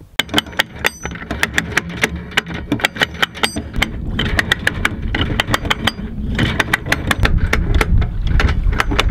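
Anchor chain clattering link by link over the bow windlass, a rapid run of sharp metallic clicks several times a second, over a low mechanical rumble that grows louder in the second half.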